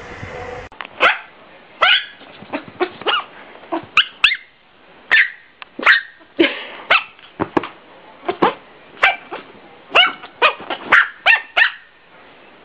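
A dog barking over and over in short barks, about two a second, starting about a second in.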